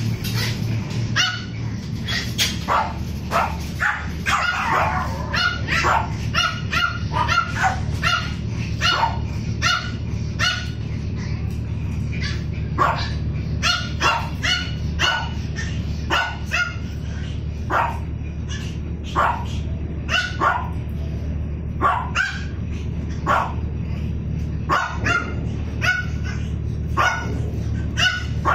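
Dogs barking and yipping over and over, short high-pitched barks coming about once or twice a second, over a steady low hum.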